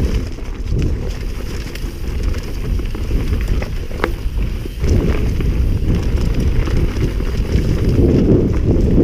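Wind buffeting the microphone of a mountain bike rider's camera at speed, mixed with tyres rumbling over a dirt trail and knocks and rattles from the bike over bumps. It grows louder about halfway through.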